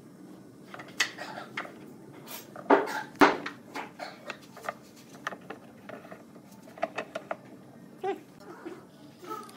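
Hardwood strips knocking and clicking against each other and the pipe clamps as they are set in place and pressed flat. The light knocks come irregularly, with the loudest two close together about three seconds in.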